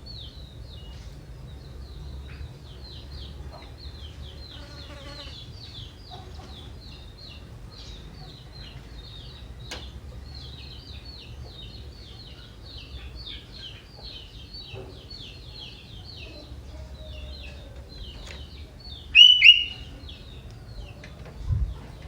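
Young wild sooty-headed bulbul singing: a long run of fast, high chattering notes, with a loud, clear two-note whistle about nineteen seconds in.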